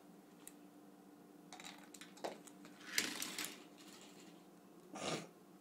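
Hands handling plastic objects on a wooden tabletop: short rustles and clatters, the loudest about three seconds in and another near five seconds, over a faint steady hum.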